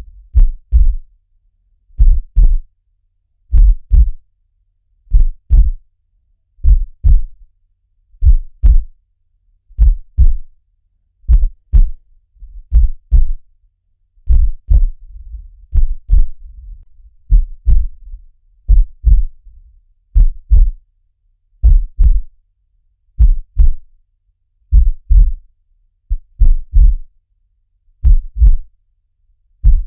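Heartbeat sound in a steady loop: a low lub-dub double thump repeating about every one and a half seconds. A faint low rumble sits between the beats in the middle stretch.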